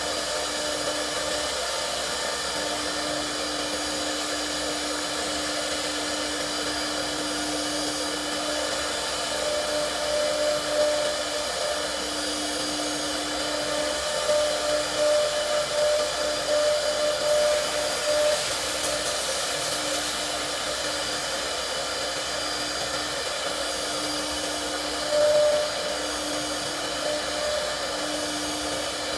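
CNC router spindle running with a steady whine, with louder, uneven stretches from about 10 to 18 seconds in and again briefly near 25 seconds.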